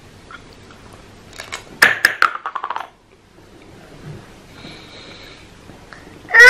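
A small hard object dropping and clattering on a hard tabletop about two seconds in, bouncing several times, faster and faster, until it settles. Right at the end a baby's loud, high squeal begins.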